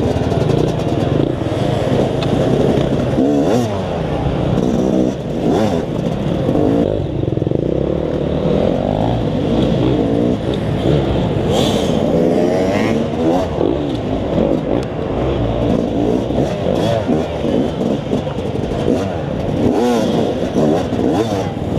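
Yamaha YZ250X two-stroke dirt-bike engine revving up and down constantly as it is ridden over rocks and dirt, with other dirt bikes' engines revving alongside. Short clatters come from the bike working over the rocks.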